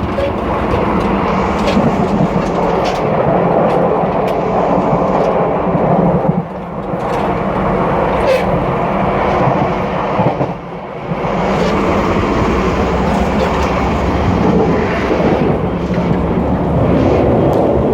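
Loud running noise heard at the gangway between two cars of a Taiwan Railways Puyuma Express tilting electric train (TEMU2000): a steady rumble of wheels and running gear on the track. It eases briefly about six and a half seconds in and again about eleven seconds in.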